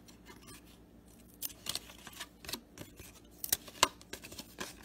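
Cardboard baseball cards being flipped through by hand, giving light, irregular clicks and snaps as each card slides off the stack.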